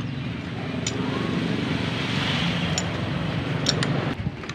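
A motor vehicle's engine running nearby: a steady low hum that stops about four seconds in. A few light metallic clicks come from engine parts being handled.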